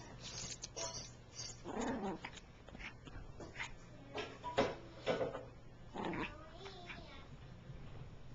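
Small long-haired dog making a few short, pitched vocal sounds, about two seconds apart, amid short rustles and clicks of handling.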